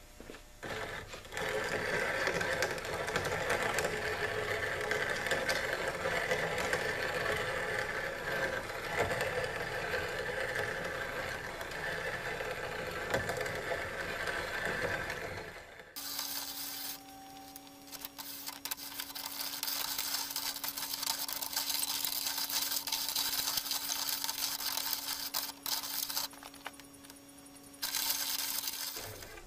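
Grain grinder running, grinding pressed black powder pucks down into grains with a continuous gritty noise. About halfway through the sound changes abruptly to a steady hum with a high hiss.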